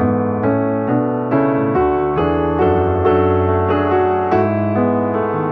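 Calm piano music: single notes and held chords played at an even, unhurried pace.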